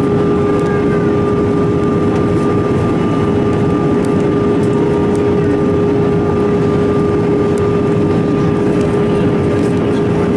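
Steady cabin noise inside an Airbus A320 in flight: rushing air and the CFM56 engines with a constant hum holding one pitch.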